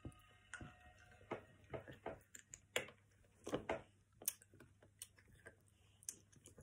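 Quiet, irregular clicks and lip smacks of eating: mouths licking candy sticks dipped in cherry sherbet powder.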